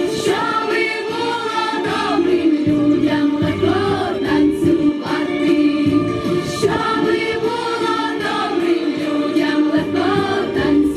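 Children's choir singing a Ukrainian kolomyika folk song together.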